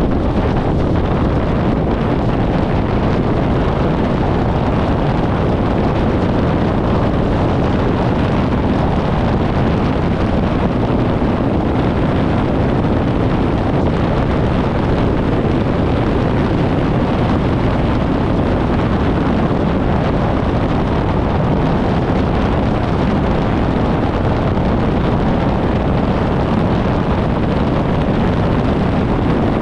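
Steady rush of wind on the microphone and road noise of a 1994 VW Gol driving at highway speed, recorded from a camera mounted outside the car.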